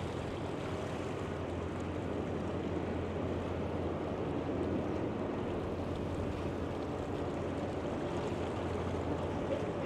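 Steady rushing noise with a constant low hum underneath, no distinct events.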